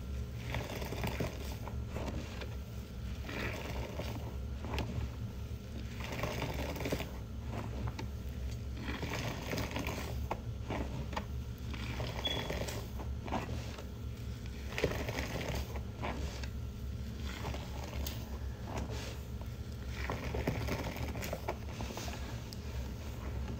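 A hand swishing and squishing through thick soap suds in water-filled sink, in uneven bouts of sloshing, over a steady low hum.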